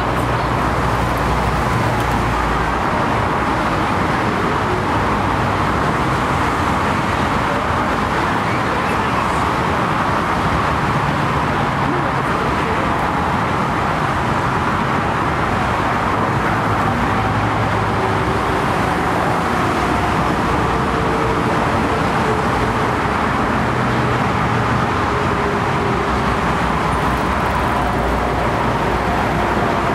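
Steady roar of airliner jet engines, with a faint engine whine coming in during the second half.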